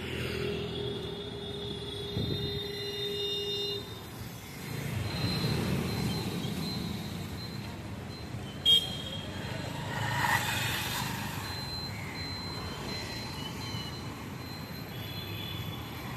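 Road traffic: motor scooters and cars passing, with a short, sharp horn toot a little under nine seconds in.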